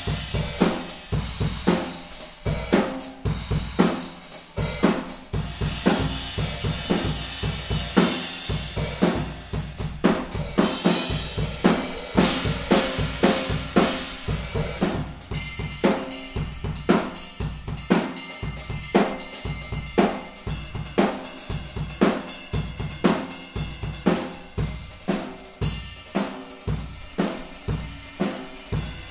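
Drum kit played in a steady groove with Owl cymbals: snare and bass drum hits under hi-hat and crash cymbals ringing. About halfway through the cymbal wash thins and a steadier ringing cymbal tone comes through.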